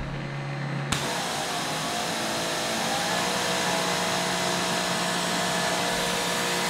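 Greenworks Pro electric pressure washer: a low hum, then about a second in the trigger is pulled and the water jet starts suddenly, spraying with a steady hiss over the even whine of the motor and pump running under load.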